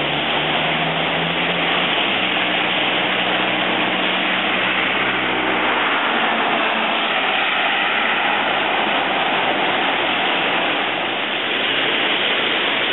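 Floodwater rushing and churning in a swollen creek, a loud, even, steady hiss, with heavy rain mixed in. A faint low hum runs underneath until about six seconds in.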